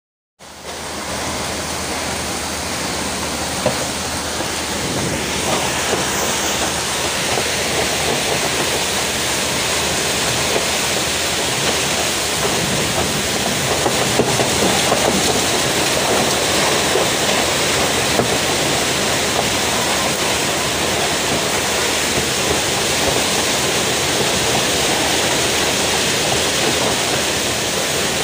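Rainstorm with heavy rain and strong wind: a dense, steady rush of noise that starts abruptly and holds at the same level throughout.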